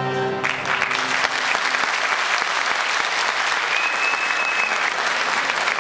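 Concert audience applauding as the last held notes of a Turkish folk choir and its string accompaniment die away about half a second in.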